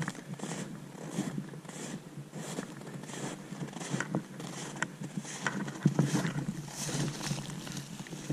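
Boots crunching through snow at a steady walking pace, about one and a half steps a second, with a few sharp snaps among the steps.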